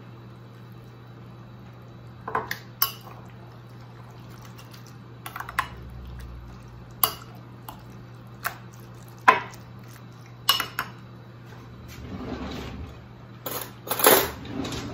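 A metal fork knocks against a glass mixing bowl in sharp, separate clinks while it stirs meat sauce through zucchini noodles, with soft wet stirring sounds. Near the end there is a louder clatter as the bowl and fork are set down on the stone countertop.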